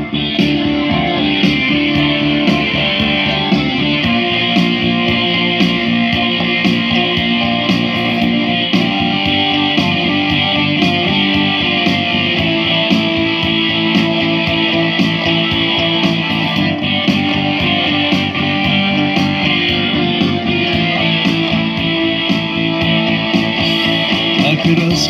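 Instrumental break of a soldiers' ballad: electric guitar played over a steady drum beat through loudspeakers, with no singing.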